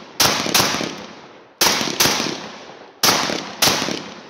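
ATA Bulldog semi-automatic bullpup 12-gauge shotgun firing five shots: a quick pair, a single about a second later, then another quick pair. Each shot echoes off before the next.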